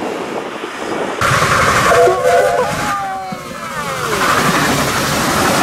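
Steam locomotive hauling carriages passing close by, loud from about a second in. Its pitched tones hold for a moment and then slide down in pitch as the engine goes past.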